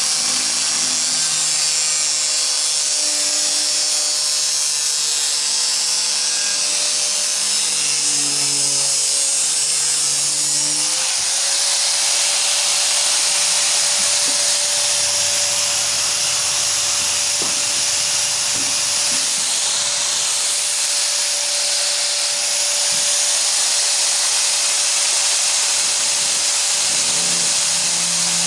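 A power tool running steadily on the thin sheet metal of a square can, a continuous hissing noise over a steady hum. About eleven seconds in the hum steps up slightly and the noise changes, as the tool's load shifts.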